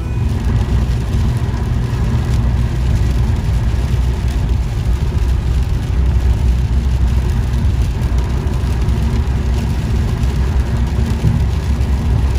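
Steady rumble of road and engine noise inside a car's cabin while driving at speed.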